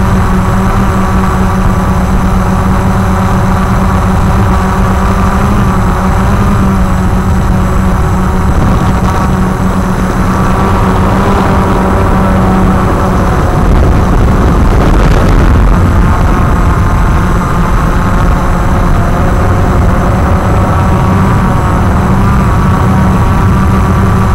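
Walkera QR X350 Pro quadcopter's brushless motors and propellers running steadily in flight, picked up close by its onboard camera as a loud hum of several steady tones over a low rumble. It swells slightly about halfway through.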